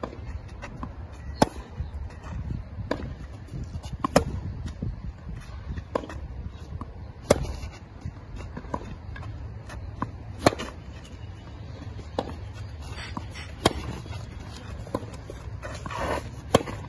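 Tennis rally: racket strings striking the ball about every one and a half seconds, sharp loud hits from the near player alternating with fainter ones from the far end of the court.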